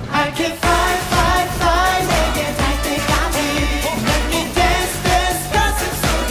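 K-pop dance track with sung vocals over a heavy bass beat; the beat kicks back in about half a second in after a short break.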